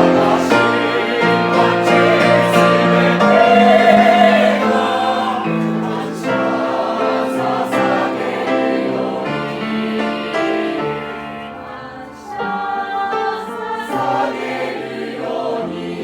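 Church choir singing a hymn in harmony, with sustained chords. The singing grows softer about three-quarters of the way through, then picks up again.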